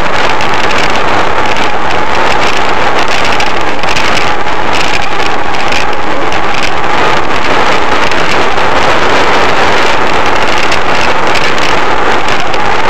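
Loud, steady rush of wind and rolling noise on the microphone of a bicycle-mounted camera riding over asphalt.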